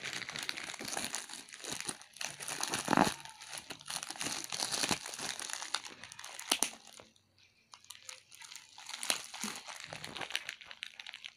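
Grey plastic poly mailer bag crinkling and crackling as hands grip and pull at it to open it, with a brief lull about seven seconds in.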